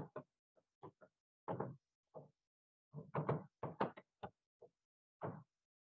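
Chalk writing on a blackboard: a faint string of short, irregular taps and scrapes as the words are chalked out.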